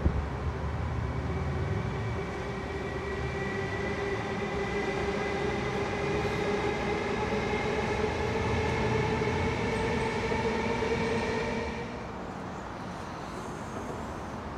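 Sydney Trains double-deck electric train passing beneath, with a steady rumble and a motor whine that rises slowly in pitch. The sound drops away sharply about twelve seconds in.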